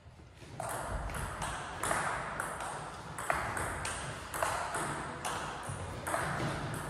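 Table tennis rally: the celluloid ball clicking off the bats and bouncing on the table, starting about half a second in and going on at about two clicks a second, echoing in a large sports hall.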